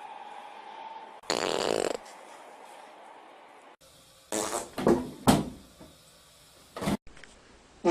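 A loud, rough fart lasting under a second, about a second in. Later come several short, sharp sounds in quick succession and two more single bursts near the end.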